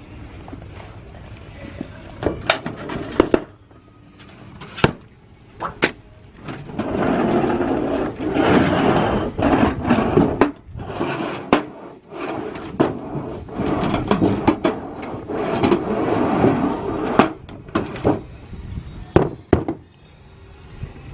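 Sheet-metal roofing panel being handled and worked: sharp metallic knocks and clicks, with stretches of rattling and scraping in the middle.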